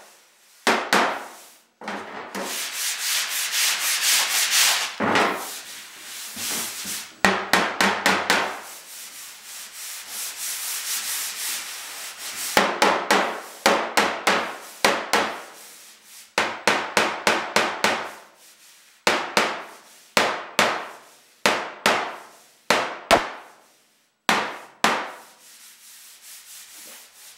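Wooden mallet tapping out a dent in a Citroën DS trunk-lid panel: quick runs of light taps, several a second, in repeated bursts. A steadier rubbing sound fills a stretch in between.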